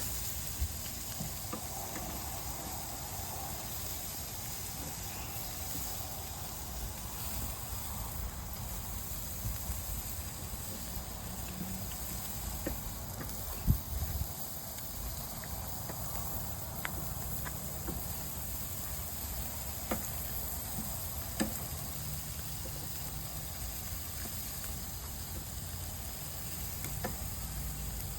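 Meat sizzling over charcoal in a smoker: a steady low hiss with scattered small crackles and clicks, and one sharp knock about 14 seconds in.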